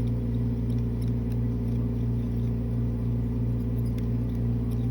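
Steady low hum at an even level, with faint light ticks and scrapes of a small hand instrument, a ball burnisher, worked over freshly placed dental amalgam to smooth the filling's margins.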